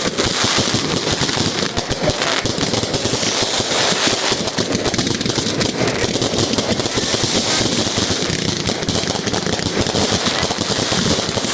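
Fireworks going off in a rapid, unbroken crackle of many small bangs, like a long string of firecrackers.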